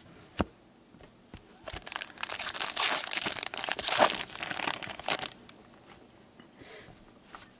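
Wrapper of an O-Pee-Chee hockey card pack crinkling and tearing as it is ripped open by hand, for about three seconds starting near two seconds in, after a single light click.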